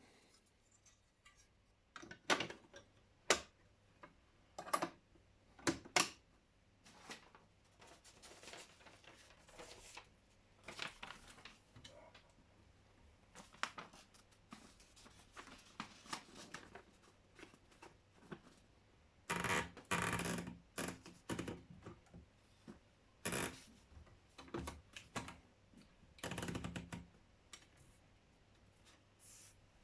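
Underwood Documentor electromechanical typewriter working: sharp mechanical clacks at irregular intervals, with longer runs of mechanical noise, the loudest about twenty seconds in and again near the end.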